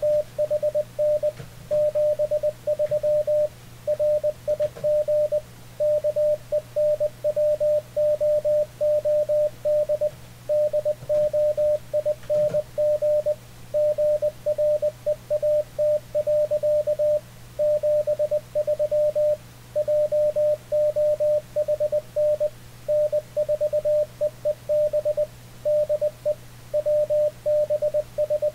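Morse code (CW) at about 20 words per minute from an Icom IC-7300: a single mid-pitched tone keyed on and off in dots and dashes, sending a keyboard-typed sign-off message, with a faint low hum underneath.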